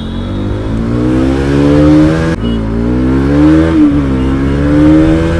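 Motorcycle engine accelerating up through the gears: its pitch climbs, drops sharply at a gear change about two and a half seconds in, climbs again, eases off briefly near four seconds, then rises once more.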